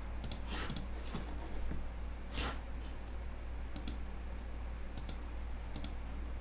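A few sharp, scattered clicks, about five in all, such as desk clicks at a computer, over a steady low hum.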